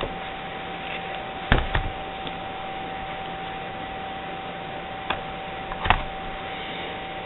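Plastic clicks and knocks of a netbook's battery being unlatched and pulled out: a quick pair about a second and a half in, then two more around five and six seconds in, over a steady hiss with a faint constant whine.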